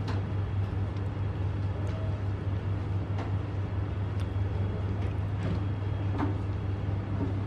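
Steady low room hum, with about half a dozen light clicks from a laptop being worked, spread roughly a second apart.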